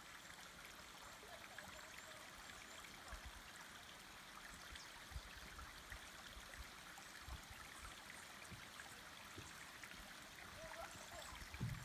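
Mountain stream flowing: a faint, steady rush of water.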